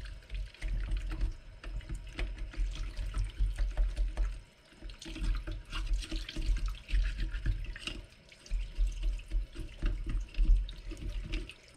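Kitchen faucet running onto a piece of dragon stone held under it, the water splashing into a stainless steel sink, with irregular knocks and rubbing as hands work the rock. The stone is being rinsed to wash loosened clay and debris out of its pores.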